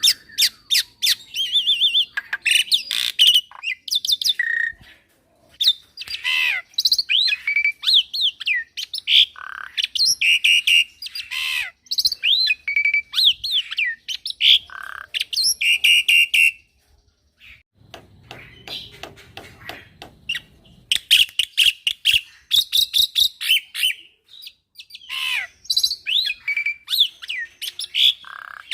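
Young black-winged myna (jalak putih) singing hard in a fast, varied run of whistles, chirps and harsh chattering notes, with a break in the song a little past halfway.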